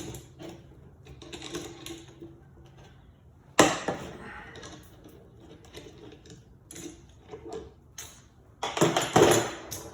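Chainsaw parts and tools being handled on a workbench: scattered clicks and rustles, a sharp knock about three and a half seconds in, and a burst of rattling clicks near the end.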